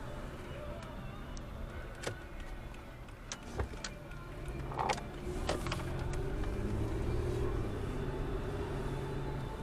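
A car running with a steady low hum, joined about halfway through by a faint held tone, with several sharp clicks and knocks in between.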